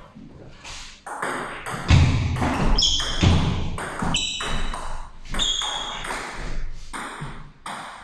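Table tennis rally: the ball clicks sharply off the bats and table many times, with heavy thuds about two seconds in and a few short high squeaks.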